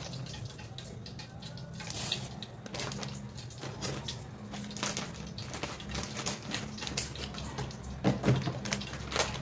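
Hot frying oil in a wok crackling, with scattered sharp pops over a low steady hum.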